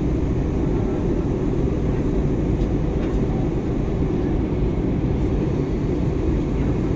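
Steady low rumble of an airliner in flight heard inside the cabin: jet engine and airflow noise, even throughout.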